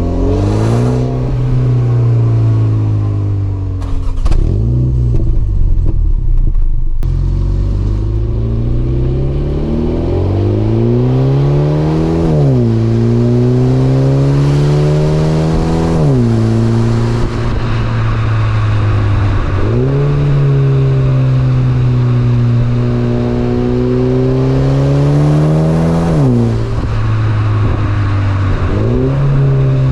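2023 Mini Cooper S's turbocharged four-cylinder engine accelerating hard through the gears: the pitch climbs steadily and drops sharply at each upshift, about five times. A few sharp cracks come in the first several seconds.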